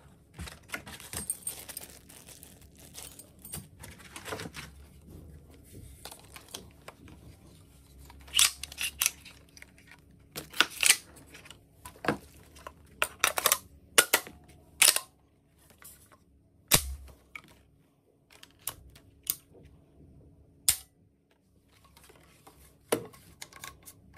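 Handling a Huglu XR7 12-gauge shotgun, its box magazines and parts in a foam-lined hard plastic case. Sharp clicks and knocks come at irregular intervals over softer rustling, with one heavier thump about two-thirds of the way through.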